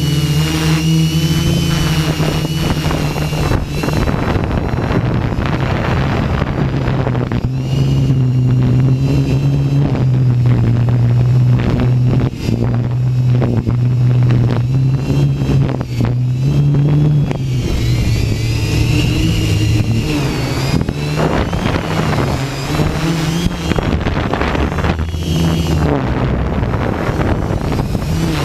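Hexacopter's electric motors and propellers droning, their pitch sliding down and back up as the motors speed up and slow down to hold it in high wind. Heavy wind gusts buffet the microphone throughout.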